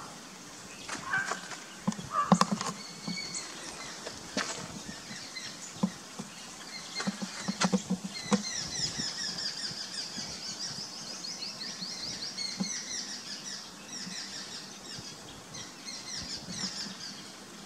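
Small birds chirping in quick, rapidly repeated high notes that grow dense about halfway through, with several sharp clicks and knocks in the first half.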